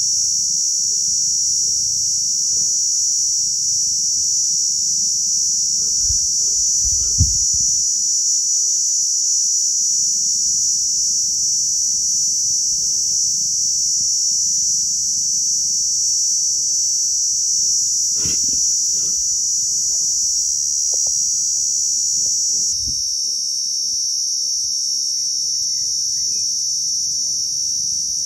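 Steady, high-pitched chorus of insects over a low rumble, with a single thump about seven seconds in and a sharp knock about eighteen seconds in.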